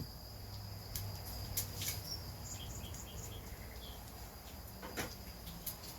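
Quiet background: a steady low hum with a few faint clicks and a short run of small high chirps in the middle.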